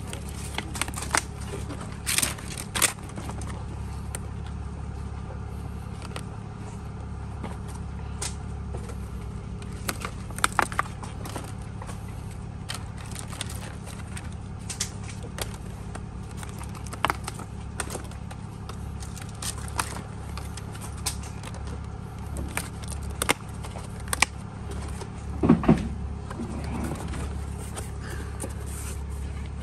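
Clear plastic berry clamshells clicking as they are handled, opened and filled with blackberries: scattered sharp clicks over a steady low rumble, with a louder cluster of clicks near the end.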